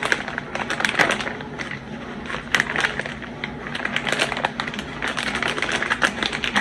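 Packaging being opened by hand: a dense, irregular run of crinkling and clicking.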